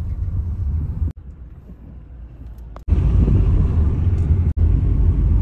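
A low rumbling noise in short stretches that cut off abruptly, quieter in the first half and loudest over the last half.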